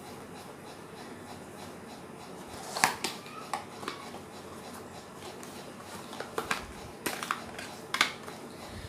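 Small objects being handled: a handful of scattered clicks and taps over a faint steady hiss, the sharpest about three seconds in.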